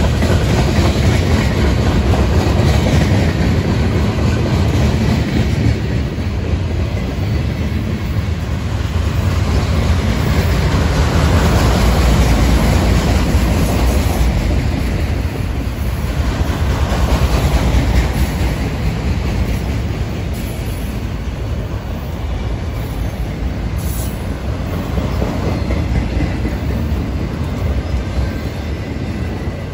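Freight cars rolling past close by: a steady, loud noise of steel wheels running on the rails, easing off a little near the end.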